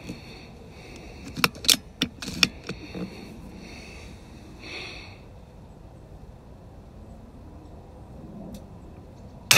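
A PCP air rifle's bolt is worked with a quick run of sharp metallic clicks about a second and a half in, cocking the rifle; near the end the rifle fires once with a single sharp report.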